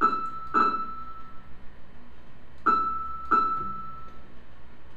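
A keyboard playing the single note E6 four times, in two pairs of strikes about half a second apart, each note ringing briefly and fading.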